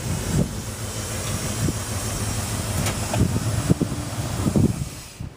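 1979 Ford F150's FiTech-injected 460 big-block V8 running hard under acceleration, getting louder and then falling away near the end.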